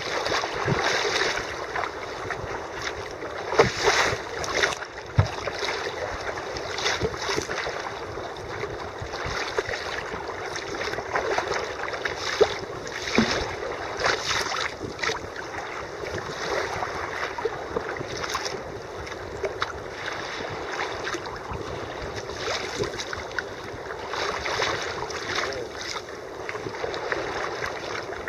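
Choppy sea water splashing and slapping against a sea kayak's hull as it is paddled, with irregular louder splashes over a steady wash of water.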